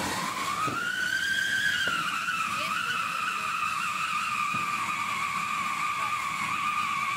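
Whistling anar (ground flower-pot fountain firework) giving off a steady shrill whistle, its 'horn', over the hiss of its spark spray. The whistle rises a little in pitch about a second in, then holds level.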